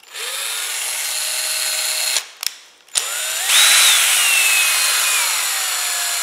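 Ryobi cordless drill driving a right angle drill attachment, run twice: a short run with a steady whine, a couple of clicks in the pause, then a longer run that speeds up to a higher whine and slowly drops in pitch.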